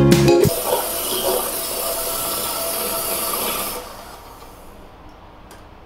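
Electric hand mixer running steadily, its beaters whipping cream in a steel bowl, then switched off about four seconds in once the cream holds peaks.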